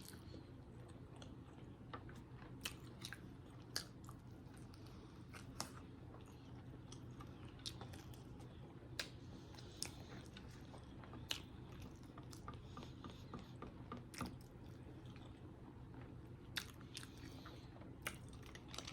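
Close-miked chewing of a sausage, egg and cheese biscuit: soft wet mouth noises with scattered sharp clicks, about one a second, over a low steady hum.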